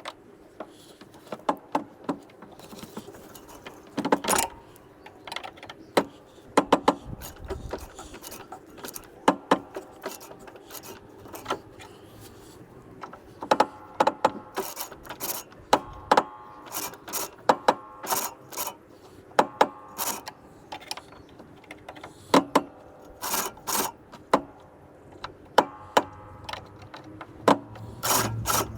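Irregular metal clicks and clinks, some ringing briefly, as a cylinder mower's cutting cylinder and adjusters are handled to lower the blades onto the sharpening strip on the bottom blade.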